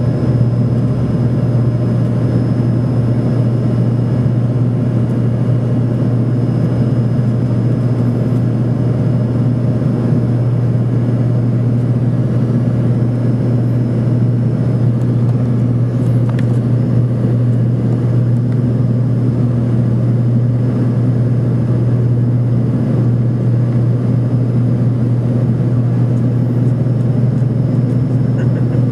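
Steady cabin drone of an Embraer ERJ 145-family regional jet climbing after takeoff: its rear-mounted Rolls-Royce AE 3007 turbofans and the rushing air, a strong low hum with a faint high whine over it.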